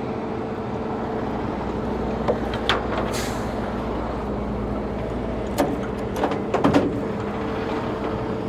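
Flatbed tow truck's engine idling steadily, with several sharp metal knocks and clanks from the tow dolly and deck, and a short hiss about three seconds in.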